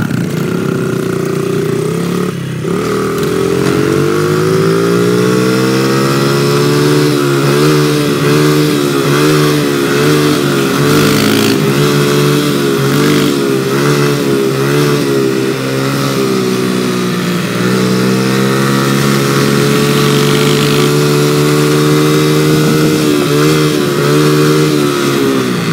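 Dirt bike engine heard from on the bike while riding. Its pitch climbs over the first few seconds and wavers up and down with the throttle, dips about two-thirds through and climbs again, then drops away at the end.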